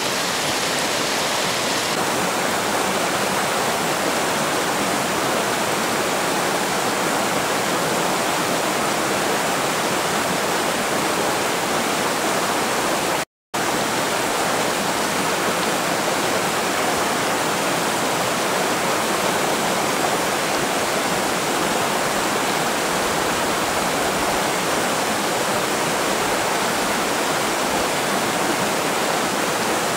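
Fast mountain river rushing in a steady, even roar of water. The sound cuts out completely for a split second about halfway through.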